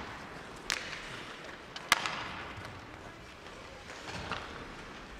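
Two sharp cracks of ice hockey play, the puck and sticks striking, the first under a second in and the second, about two seconds in, louder and echoing through the rink.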